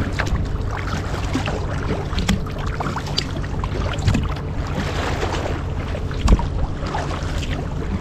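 Sea water splashing and lapping against a kayak's hull as it moves through choppy water, with a low rumble of wind on the microphone. A louder knock comes about six seconds in.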